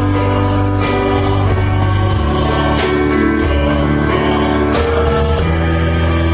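Contemporary Christian worship song: several voices singing together over a band with sustained chords and a steady beat marked by cymbal strokes.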